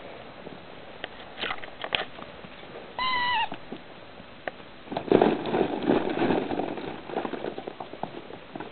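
Puppies moving about in their run: scattered clicks and scrapes, a single short high whine about three seconds in, then a couple of seconds of busier scrabbling and rustling.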